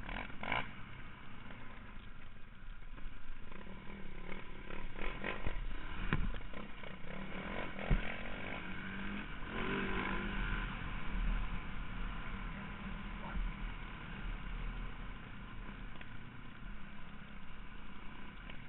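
Four-stroke single-cylinder enduro motorcycle engine running at riding speed, heard from the bike itself with wind noise, and a few sharp knocks, the loudest about eight seconds in.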